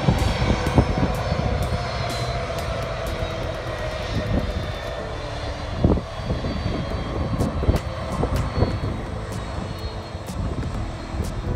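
Airbus A300-600ST Beluga's General Electric CF6-80C2 turbofans running at taxi power, a steady jet whine and rush as the aircraft taxis slowly past.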